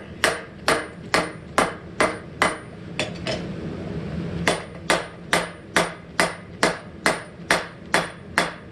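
Hand hammer of about 2.5 pounds striking hot steel on an anvil, forging the end of an old hammer head into a spike. The blows come steadily at about two a second with a brief ring after each, pausing once a little before halfway.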